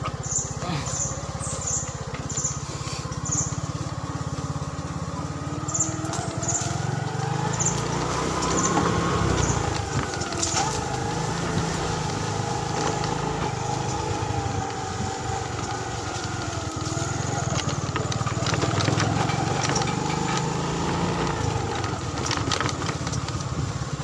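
Motorcycle engine running as it is ridden over a rough dirt track, its revs rising and falling, with scattered knocks and clicks from the bumps.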